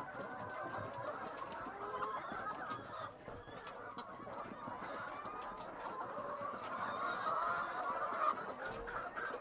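A flock of chickens clucking and calling over one another without a break, with scattered short clicks among the calls.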